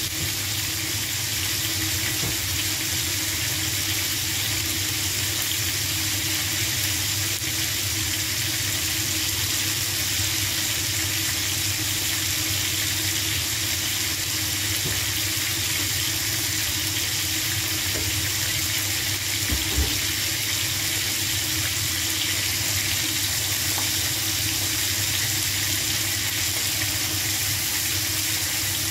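Pieces of grouper (lapu-lapu) head frying in oil in a nonstick pan: a steady sizzling hiss, with one brief low thump about two-thirds of the way through.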